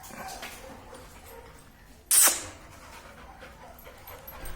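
A single sharp dog bark about two seconds in, standing out against a low background.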